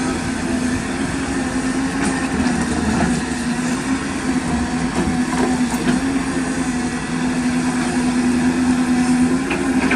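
Caterpillar 320D hydraulic excavator's diesel engine running with a steady low drone while the boom and bucket are worked.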